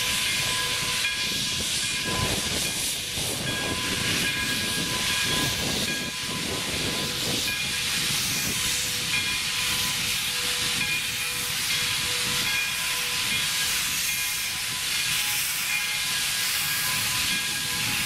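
Santa Fe #3415, a Baldwin 4-6-2 Pacific steam locomotive, hissing steadily as steam vents from around its cylinders while it creeps forward, with a faint high steady whine under the hiss and a low rumble.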